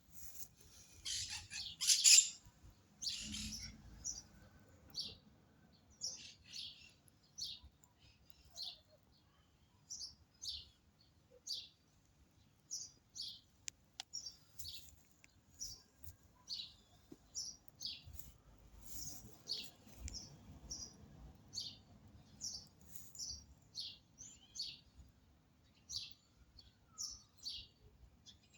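Small birds chirping: short, high-pitched chirps repeated about once or twice a second, with a louder flurry of chirps near the start.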